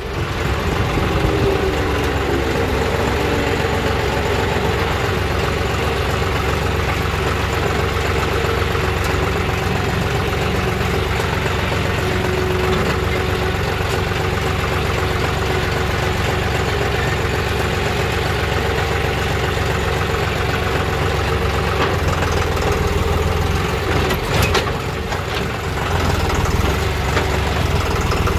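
John Deere 5210 GearPro tractor's three-cylinder diesel engine running steadily on the road while towing a loaded trolley. The engine eases off briefly about 24 seconds in, with a couple of knocks, then picks up again.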